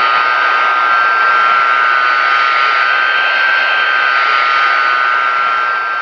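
Boeing 747-200's Pratt & Whitney JT9D-7 turbofan engines running: a steady jet rush with a strong high whine, beginning to fade near the end.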